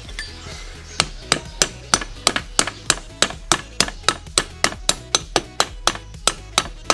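A hammer tapping a 6303Z ball bearing into the engine crankcase: about twenty quick, even strikes, roughly three a second, starting about a second in. The strikes are seating a bearing that did not slide fully home on its own. Background music with a low beat runs underneath.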